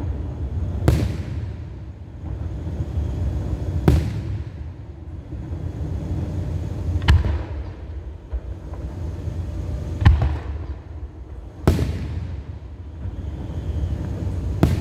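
Fireworks display: aerial shells bursting with six sharp bangs spaced a few seconds apart, over a continuous low rumble.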